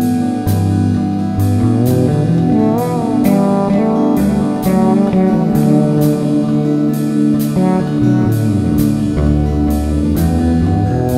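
Instrumental background music with a steady drum beat, bass and keyboards.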